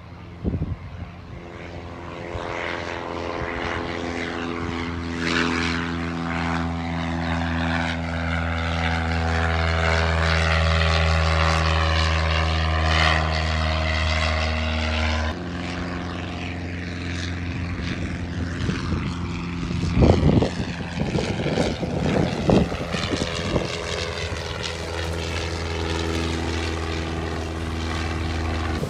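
Light propeller planes flying overhead, their engine and propeller making a steady drone that grows louder as the first plane nears. About halfway through the sound cuts abruptly to a second plane's drone. Wind gusts hit the microphone around two thirds of the way in.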